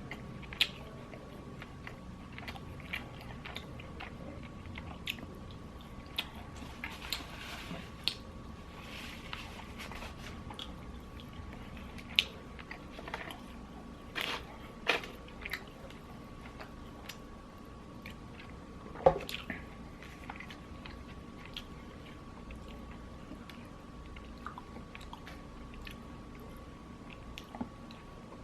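Close-up biting and chewing of crispy Popeyes fried chicken: irregular crunches of the breaded skin with soft chewing between, and a few louder, sharper crunches.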